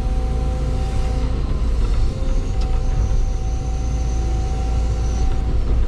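Cat 316 excavator's diesel engine running steadily with its hydraulics working, a deep continuous drone with a thin whine that comes and goes.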